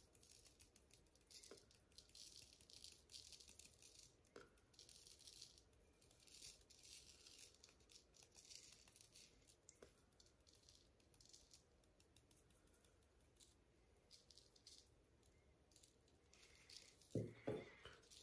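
Fine glitter being shaken from a small shaker jar onto a wet epoxy coat: faint, soft rattling hiss in short spells. There are a couple of louder knocks near the end.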